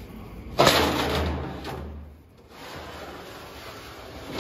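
12-gauge Hardox 450 steel wear-plate liner sliding and scraping along the steel floor of a combine feeder house: a sudden clank and scrape about half a second in that fades over a second or so, then quieter scraping as the plate is pushed into place.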